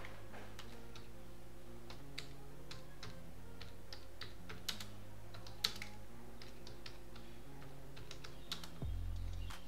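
Typing on a computer keyboard: irregular key clicks, a few a second, with one sharper keystroke a little past the middle. A low thud comes near the end.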